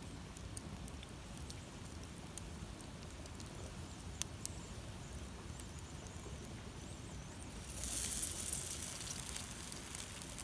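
A wood campfire's embers crackling, with scattered sharp pops over a low rumble. About eight seconds in, a louder hiss swells for a couple of seconds.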